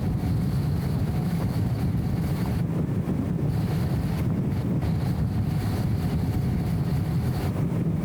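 BMW E34 M5 Touring's S38 straight-six and road noise heard while cruising: a steady low rumble without revving, dulled by the camera's wind-noise filter.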